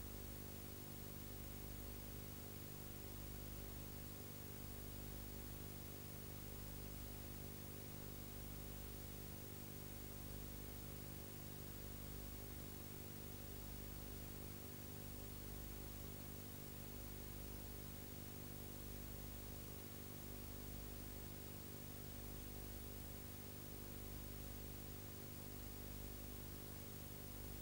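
Faint steady electrical hum with hiss, unchanging throughout, with no distinct events.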